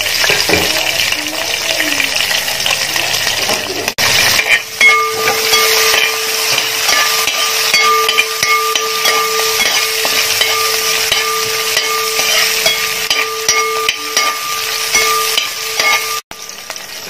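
Green chillies, curry leaves, ginger and garlic sizzling in hot oil in a pan while being stirred. A steady hum sits under the sizzle through most of the middle.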